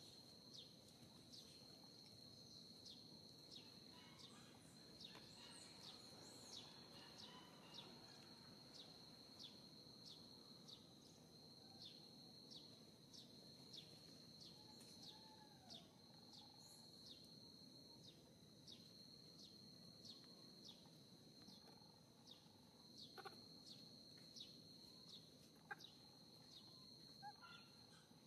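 Faint outdoor ambience: an insect keeps up a steady high-pitched trill that pulses about one and a half times a second, with a few faint chirping calls over it.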